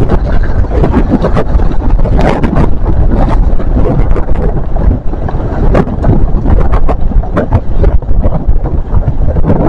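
Wind buffeting the microphone: a loud, unbroken low rumble with irregular crackles.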